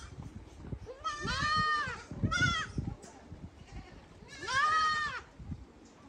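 Goats bleating: three separate calls, each rising and falling in pitch, the last and longest near five seconds in.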